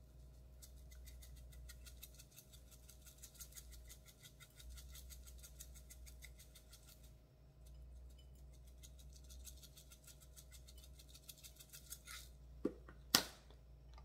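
Handheld spice grinder being twisted over a plate of pasta, giving a fast, even run of crisp grinding clicks for several seconds. Near the end come a few hard knocks, one sharp clack the loudest, as things are set down and handled on the counter.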